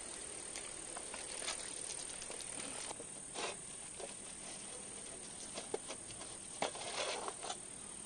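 Crickets chirring in a steady high drone, with scattered clinks and scrapes of a steel plate lid and ladle as the ash-covered lid is taken off a dum biryani pot.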